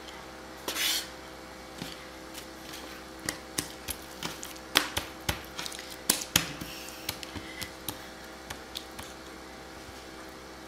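Chef's knife tapping and knocking on a plastic cutting board while slicing, in irregular clicks that come thickest in the middle, with a short rustling swish about a second in. A faint steady hum runs underneath.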